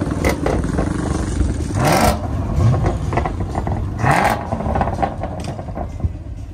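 Chevrolet Camaro ZL1's supercharged 6.2-litre V8 idling with a low rumble and revved twice, the pitch rising to a loud peak about two seconds in and again about four seconds in.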